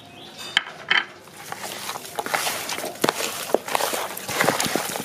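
Raw chicken drumsticks being turned and tossed by hand in a plastic bowl to coat them: two sharp taps near the start, then a dense run of rustling, slapping and tapping of the meat against the bowl.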